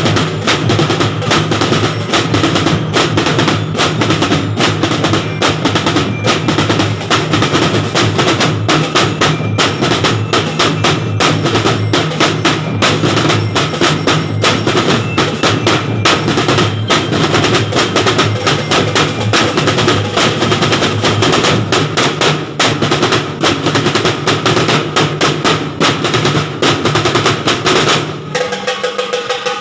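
A drum and bugle corps drum line playing: snare drums in fast, dense rolls and rapid strokes over steady low drum tones. About a second before the end the drumming drops back and a held pitched note comes in.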